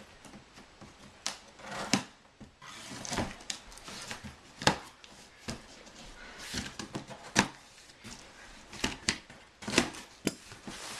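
Cardboard shipping box being handled and opened by hand: irregular knocks, thuds and short scraping rustles, about a dozen sharp strikes spread over the stretch.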